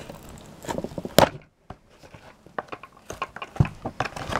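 A cardboard toy box with a clear plastic window being opened by hand: irregular crinkling and crackling of the plastic and cardboard, with a loud crackle about a second in.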